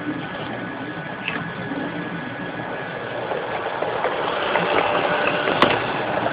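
Model train running on its track: a steady electric-motor whir with rumbling and light clicking from the wheels on the rails, growing louder as the red double-deck coaches pass close by. A single sharp click comes about five and a half seconds in.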